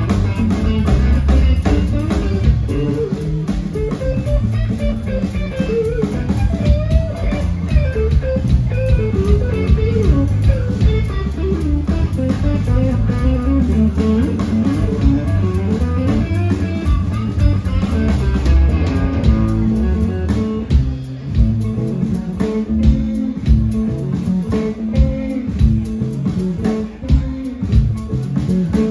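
Live blues-rock band playing an instrumental passage: electric guitar playing a lead line over bass guitar and drum kit, with no singing. About two-thirds of the way through the playing turns to spaced, accented hits over a held low note, as the song heads for its ending.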